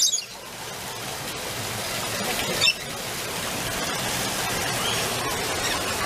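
Two short, shrill parrot calls, one at the very start and one about two and a half seconds in, with fainter chirps later, over a steady rushing background noise.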